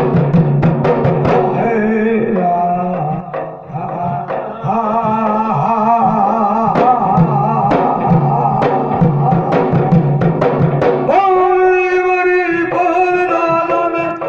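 A pair of mata drums, large earthen pots with skin heads, beaten by hand in a quick rhythm under male voices singing a Rajasthani folk ballad. About eleven seconds in the drumming mostly drops away, leaving long held sung notes.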